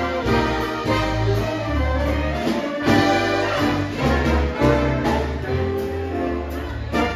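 Live big band playing a swing number: saxophone, trumpet and trombone sections in chords over string bass and keyboard, with a steady beat.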